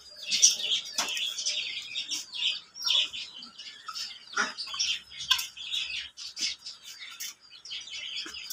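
Many birds chirping and cheeping continuously in high overlapping calls, with a few sharper, louder squawks.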